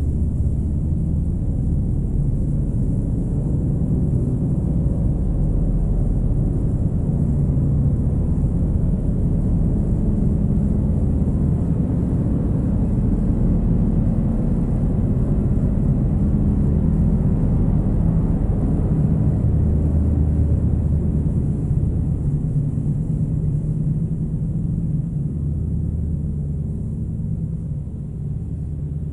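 Dark ambient drone music of guitar and synths: a dense, low rumbling drone of sustained deep tones that slowly shift, easing slightly near the end.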